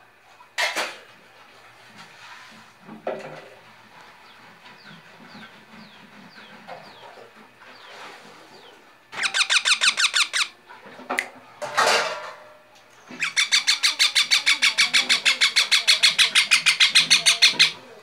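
Baby parakeets calling: a few single squawks, then a rapid chattering run of about ten calls a second for about a second near the middle, and a longer run of about four seconds near the end, the loudest part.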